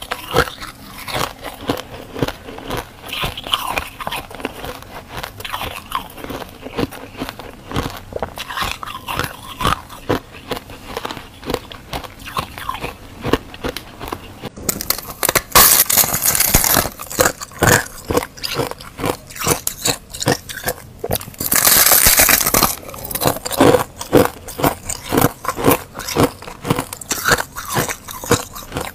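Freezer frost being bitten and chewed: many quick, crisp crunches with crackling between them. There are two longer, louder stretches of crunching, one about a quarter of a minute in and another a few seconds later.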